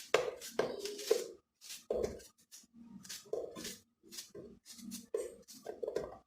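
A knife cutting through unripe plantain, making irregular clicks and knocks.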